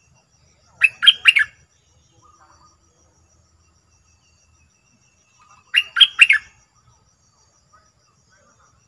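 Merbah lekir bulbul calling: a short, bright phrase of three quick notes about a second in, repeated about five seconds later, with a few soft notes between.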